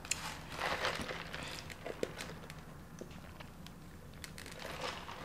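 Light handling noises: a brief rustle in the first second, then a scatter of small clicks and taps.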